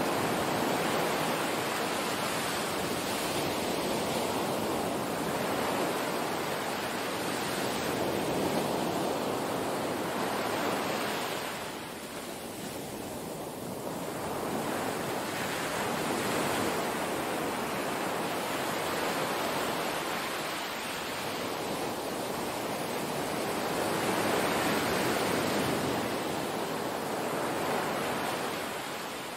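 Small waves washing onto a sandy beach: a steady rush of surf that swells and eases every few seconds, dropping back briefly about twelve seconds in.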